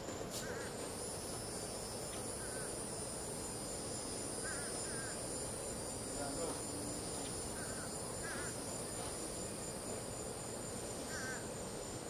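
Crickets trilling: a high, fast-pulsing trill with a second, higher steady trill joining about a second in. Short chirping calls come here and there over a steady low background hum.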